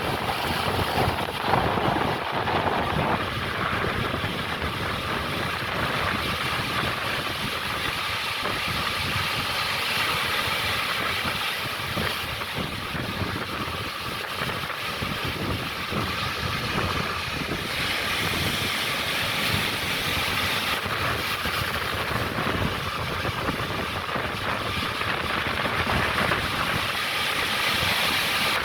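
Ocean surf: a continuous wash of breaking waves, swelling louder for a few seconds about two-thirds of the way through.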